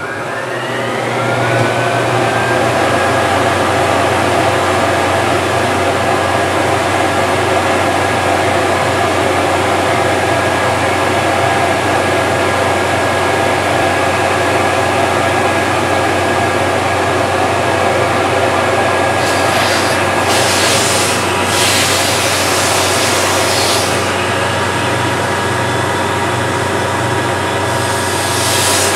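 10 hp industrial vacuum cleaner motor, run on single phase through a homemade transformer phase converter, spinning up with a rising whine over the first couple of seconds and then running steadily at full speed. Stretches of a higher hiss come in about twenty seconds in and again near the end.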